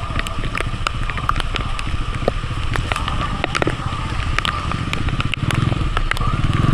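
Heavy rain with many sharp drop ticks hitting close to the microphone, over a low vehicle engine rumble that grows louder near the end.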